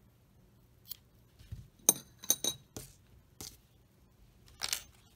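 Scissors snipping off a yarn tail: a quick cluster of sharp metallic clicks from the blades about two seconds in, followed by a few short rustles of yarn being handled.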